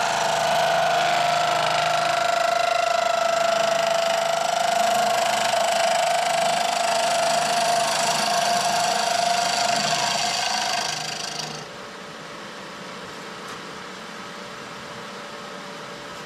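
Wood lathe running while a turning tool cuts the spinning wood: a steady high whine over a wide cutting hiss. About eleven and a half seconds in it drops suddenly to a much quieter steady hum.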